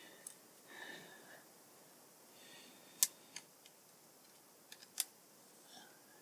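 A few small, sharp clicks and taps from handling small parts and tools during a repair: two clearer clicks about three and five seconds in, with fainter ticks between, over low room noise.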